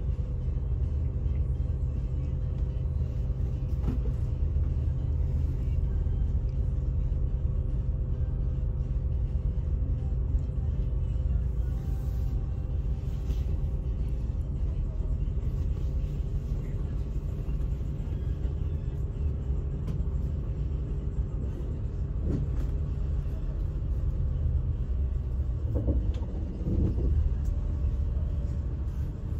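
Daewoo FX116 bus engine idling steadily with a low rumble, heard from inside the cabin; about three-quarters of the way through it revs up as the bus pulls away.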